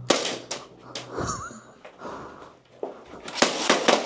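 Airsoft guns firing: sharp clicks and snaps, a few in the first second, then a quick run of them near the end.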